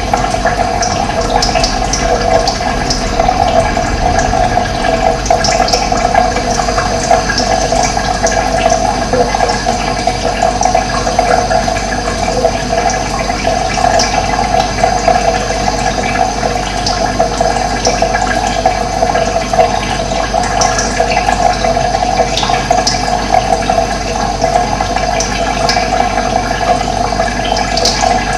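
Steady running water flowing continuously, with short high bird chirps scattered through it.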